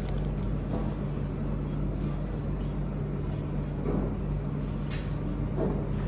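Steady low hum and rumble of a moving vehicle, with a few faint clicks.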